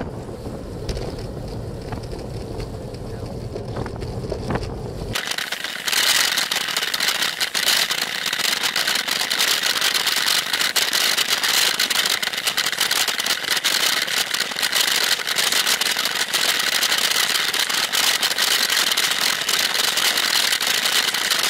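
Riding noise from a bicycle-mounted camera on a wet road. For about five seconds there is a low wind rumble. After an abrupt change, a loud, dense hiss with rapid crackle runs on: tyre hiss on the wet surface and the mount rattling.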